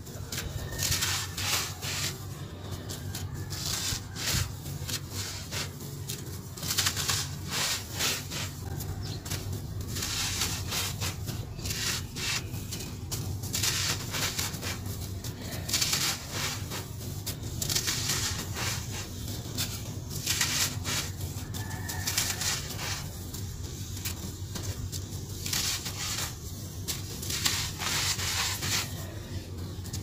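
Dry, gritty cement-and-sand powder scooped by hand and sifted and crumbled through the fingers, making repeated crackly, hissing pours every second or two.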